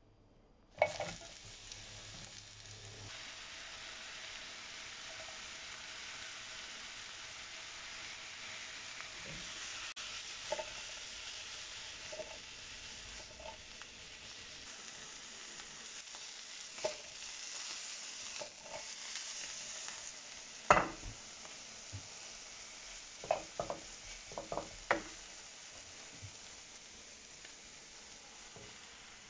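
Sliced mushrooms and parsley sizzling in butter in a non-stick frying pan. A steady hiss sets in with a sharp knock about a second in. Scattered knocks of a utensil against the pan come through it as the food is stirred: a loud one about 21 s in and a quick cluster a few seconds later.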